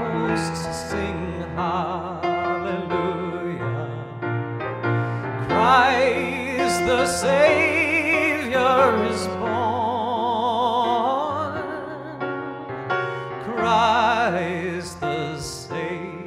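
A male singer holding long notes with a wide vibrato, accompanied by a grand piano.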